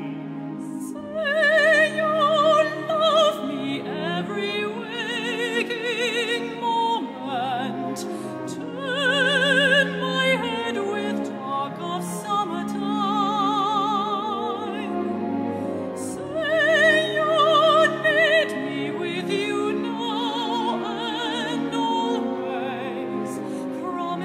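A soprano singing a slow ballad in operatic style with strong vibrato, over instrumental accompaniment.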